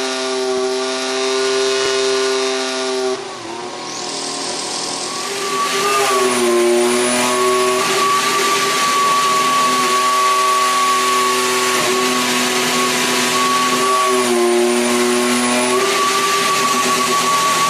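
Formula 1 turbocharged hybrid V6 engine idling steadily on first fire-up, with a high electric-sounding whine over the engine note. It drops away briefly about three seconds in, then settles into a steady idle again, its pitch dipping briefly twice.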